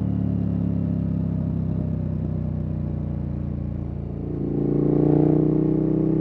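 KTM 1290 Super Adventure S V-twin running through a Wings aftermarket exhaust at part throttle, then opened up about four and a half seconds in, growing louder for a moment before settling.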